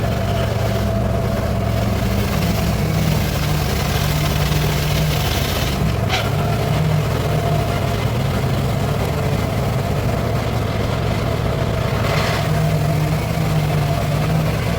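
Circular-saw rig's drive motor running steadily with the blade spinning free between cuts: a low engine drone whose pitch wavers slightly, with a short click about six seconds in.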